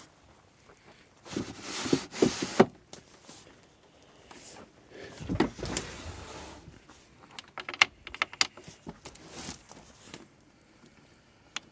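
Wooden storage drawers in an SUV's cargo area being slid open and shut, with gear knocking about inside. A run of small clicks and taps comes about two-thirds of the way in, as a metal drawer latch is worked.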